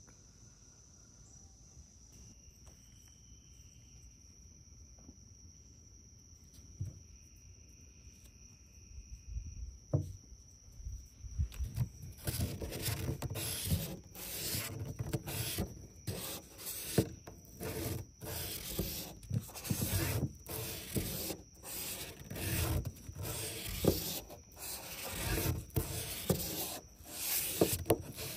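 A small metal part of a diesel brake vacuum pump rubbed by hand back and forth on 600-grit sandpaper over a flat surface, lapping it flat. It is a run of scratchy rubbing strokes, under a second apart, that starts about twelve seconds in after a quiet stretch.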